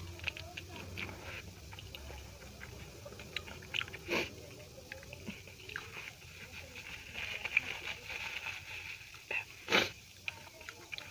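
Close-miked chewing and mouth noises of someone eating a meal of dal, rice and chapatti, with many small wet clicks and two louder bites, about four seconds in and near the end.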